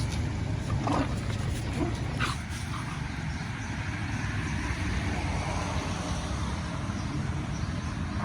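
A dog makes a few short, high sounds in the first couple of seconds while playing, over a steady low background rumble.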